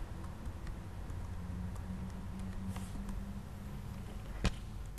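Faint computer keyboard and mouse clicks over a low steady hum, with one sharper click about four and a half seconds in.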